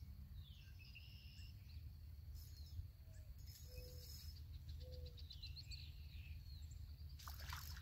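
Faint outdoor ambience: small birds chirping and calling, with a quick trill of repeated notes around the middle, over a steady low rumble. A short sharp burst of noise comes near the end.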